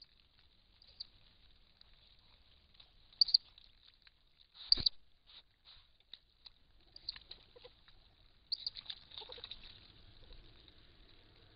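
Rustling and scratching of a Eurasian otter moving through dry stems and leaves: scattered soft clicks and rustles, two louder snaps about three and five seconds in, and a busier run of rustling near the end, over a faint steady hiss.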